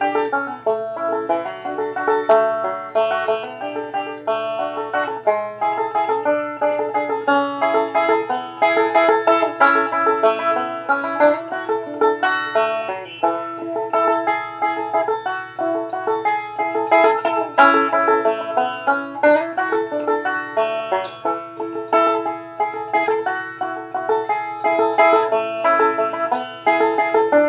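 Five-string banjo played solo, a steady run of picked notes and chords.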